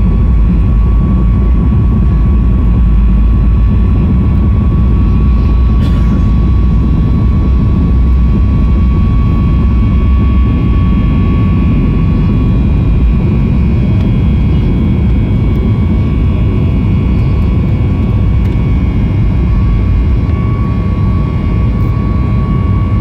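Cabin noise of a Boeing 737 MAX 8-200 climbing after takeoff: its CFM LEAP-1B jet engines and the airflow make a loud, steady rumble with one steady high tone running through it.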